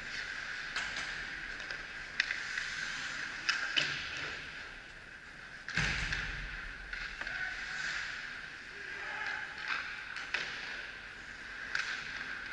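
Ice hockey play: a steady hiss of skate blades on ice with scattered sharp clacks of sticks and puck, and one heavier thump about six seconds in, close to the net.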